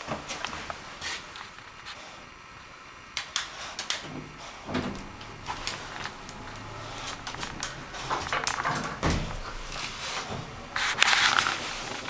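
Clicks, rattles and a couple of dull clunks inside a small elevator car, with a louder rush of noise about a second before the end.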